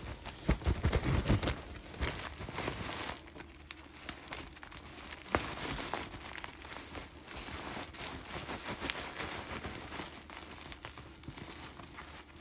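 Henry vacuum cleaner dust bag crinkling and rustling as packed dirt is scraped and pulled out of it, with many small crackles. It is loudest in the first two seconds, then goes on more softly.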